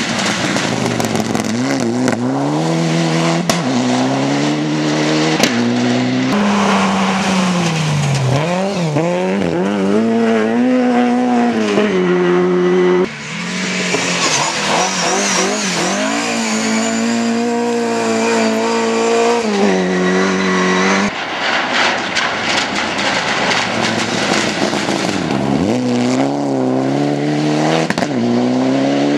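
Rally cars at full throttle on a loose gravel stage, one after another. The engines rev up through the gears, the pitch climbing and dropping back with each shift, and the tyres scrabble on the gravel. The sound breaks off abruptly twice as it switches from one car to the next.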